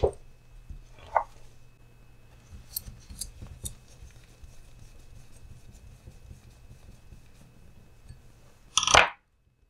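Light clicks and ticks of a hex driver and small plastic parts being handled on a Traxxas TRX-4M RC crawler as its front drive shaft is fitted: a few sharp clicks in the first few seconds, then a louder brief clatter near the end.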